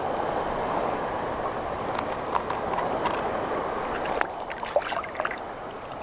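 Water sloshing and lapping, with a scatter of small sharp metallic clicks and scrapes from about two seconds in, thickest around four to five seconds, as a corroded old Zippo lighter is handled in the fingers.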